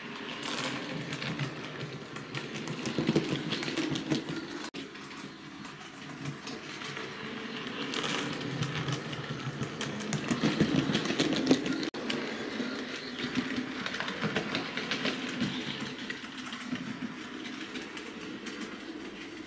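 Hornby OO gauge model of a Coronation-class steam locomotive running on the layout: its electric motor whirring and its wheels clicking quickly over rail joints and points. It grows louder as it passes close, about ten seconds in.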